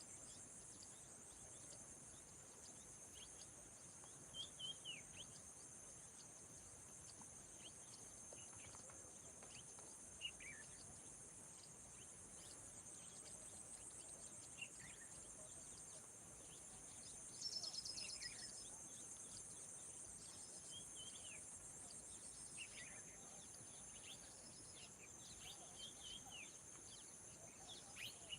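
Insects trilling steadily in a high, pulsing chorus, with scattered short, falling bird chirps every few seconds. Faint overall.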